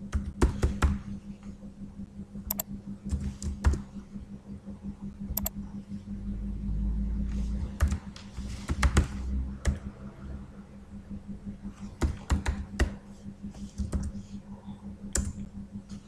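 Typing on a computer keyboard: irregular keystrokes in short runs, over a steady low hum, with a brief low rumble about six seconds in.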